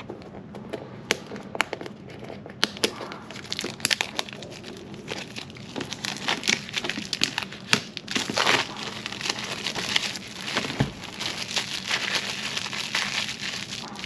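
Clear plastic shrink wrap being peeled off a small cardboard box and crumpled by hand: a run of sharp crackles and crinkling that grows denser about halfway through. There is one low thump about eleven seconds in.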